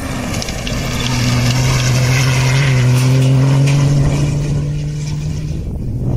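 Cross-country rally vehicle's engine running hard as it drives past, growing louder to a peak about halfway through and fading near the end.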